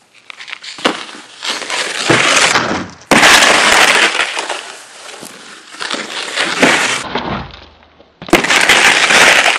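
Snowskate deck scraping and crunching over snow, with sharp knocks. Loud stretches start suddenly about three seconds in and again near the end.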